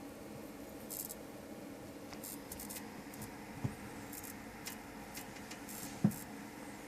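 Corsair CX750M power supply making electrical noise: a steady low hum with irregular short bursts of high crackling hiss, the fault the owner is showing. Two brief low thumps, the louder one about six seconds in.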